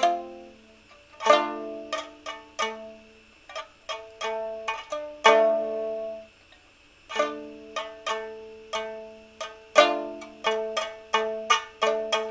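Solo plucked string instrument improvising: single notes and small chords, each sharply struck and ringing away, with a brief pause about halfway through.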